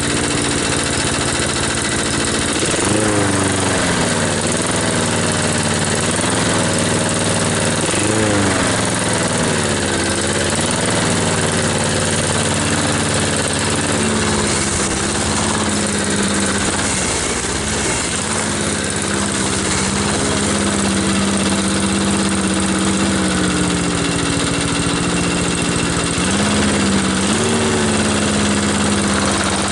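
Predator 173cc single-cylinder four-stroke engine running on a push lawn mower, its speed rising and falling back several times and holding steady in between.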